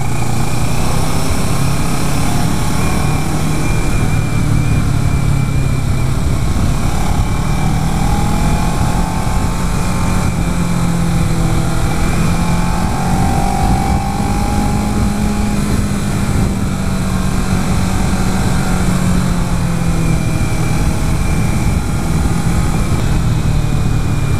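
2011 Kawasaki Ninja 650's parallel-twin engine running at moderate, steady revs on the move. Its pitch rises gently through the middle and eases back down toward the end, without hard acceleration.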